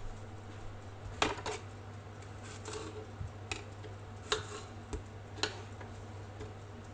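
Serrated kitchen knife cutting a zucchini on a wooden board: a series of sharp knocks and taps of the blade and vegetable against the wood, spaced about half a second to a second apart, the loudest about a second in.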